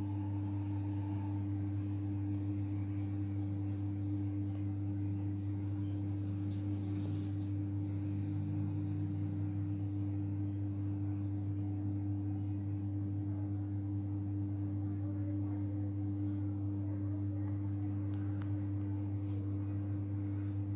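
A steady low hum, even in level, with only a few faint ticks a few seconds in.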